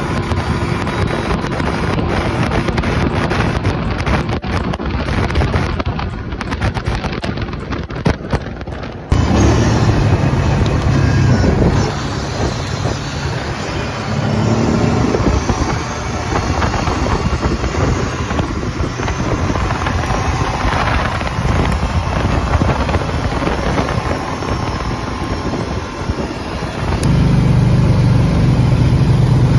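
Kawasaki Brute Force ATV engine running while riding, with wind rushing over the microphone for the first nine seconds or so. After a sudden change, the engine's drone is clearer, and it grows louder near the end.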